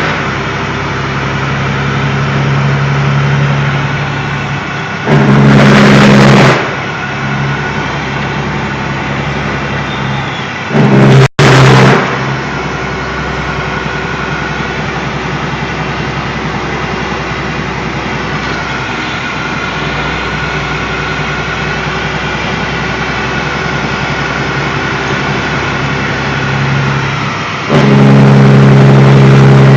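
Detroit Series 60 diesel with an 8-inch straight pipe running with a steady, deep exhaust drone. Three times, around 5 seconds in, around 11 seconds in, and near the end, the exhaust suddenly gets much louder, enough to overload the recording, while the pitch stays about the same.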